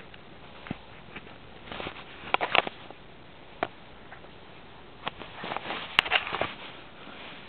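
Handling noise from a camera pressed against clothing during tree climbing: fabric rubbing and scraping on the microphone, with scattered sharp clicks and knocks and two spells of rustling. The loudest is a sharp click about six seconds in.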